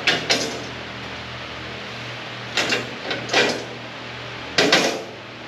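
A handheld power tool run in short bursts, three times, each time in a quick pair, over the steady hum of a shop fan.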